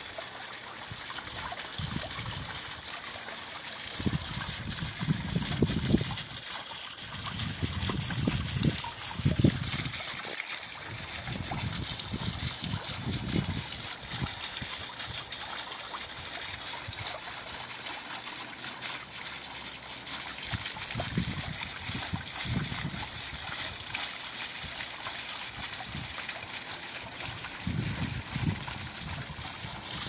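Small garden fountain jet splashing and trickling steadily over a mound of ice crystals in a frozen pond. Low rumbles come and go several times.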